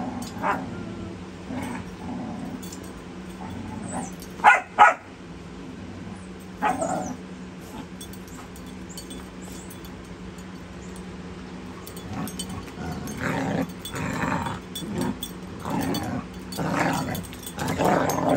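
Puppies play-fighting with a larger dog: a couple of sharp yips about four to five seconds in, then a run of repeated play growls in the second half.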